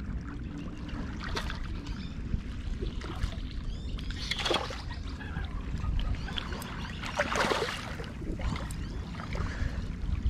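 Small waves lapping and sloshing against a rocky shoreline, with a steady wind rumble on the microphone. Two louder washes come about four and a half and seven and a half seconds in.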